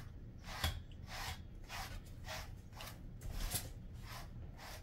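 Grooming brush raking through a Jindo dog's coat in repeated short, scratchy strokes, about two a second.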